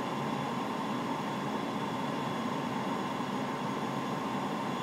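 Steady flight-deck noise during an instrument approach: an even hum and hiss with a faint, constant high tone through it.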